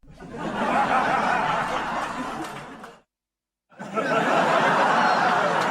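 Studio audience laughter from a TV laugh track: a burst of crowd laughing that fades out about three seconds in, a moment of dead silence, then another burst of laughter.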